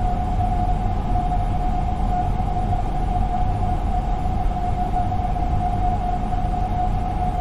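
Jet airliner heard from inside the cabin: a steady rushing roar with a constant high whine over it.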